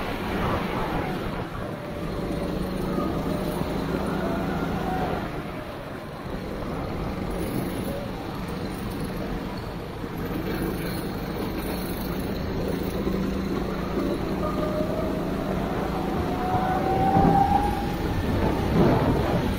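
Go-kart engine heard from onboard, its pitch falling as the driver lifts for corners and rising again as it accelerates, with a clear climbing rev near the end. A steady hiss of wind and water spray runs under it.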